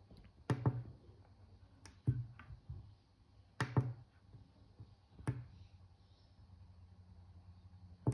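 Clicks of a finger pressing the buttons on a GoodWe three-phase inverter's front keypad, about four presses, some of them double clicks, spread over the first five seconds. After that it goes quiet apart from a faint steady low hum.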